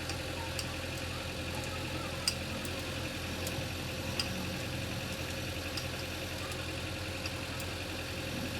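An engine idling steadily, with a few sharp clicks over it; the loudest click comes a little over two seconds in.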